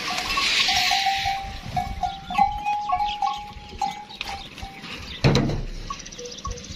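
A herd of dromedary camels crowding at a water trough: many short, steady-pitched notes repeat irregularly for the first few seconds, and one loud low sound comes about five seconds in.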